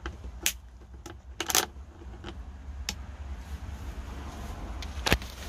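Several separate sharp metallic clicks and clinks as a heavy battery cable's ring lug is handled onto a terminal stud, with a strong click near the end, over a low rumble of handling noise.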